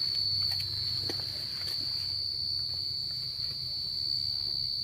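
Crickets chirping at night as one continuous high-pitched trill, with a few faint rustling clicks over it.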